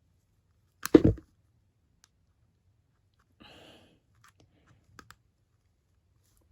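Handling noise from small hard objects: one loud knock about a second in, then a brief faint rustle and a few small clicks.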